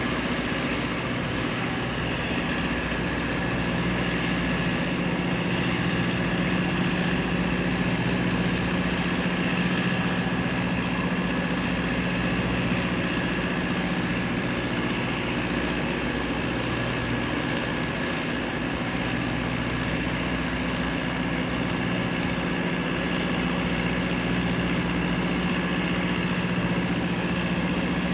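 Boeing 929 jetfoil's gas turbines running steadily: a constant high whine over a low hum, with no change in pitch.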